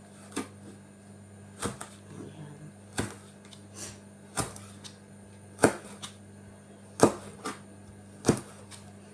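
Kitchen knife chopping green beans on a cutting board: seven sharp knocks of the blade hitting the board, evenly spaced about one every second and a bit, the loudest a little past the middle.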